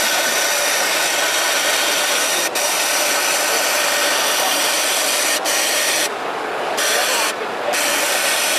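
Kingtex UHU9304 2-needle 4-thread cylinder-bed overlock machine running at high speed with a steady whirring buzz as it stitches a neckband onto a knit garment. It stops for an instant twice, then cuts out for two short pauses near the end as the fabric is repositioned.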